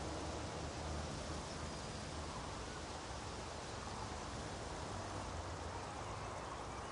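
Steady outdoor meadow ambience: an even, soft hiss of breeze through grass with a low rumble underneath and no distinct calls or events.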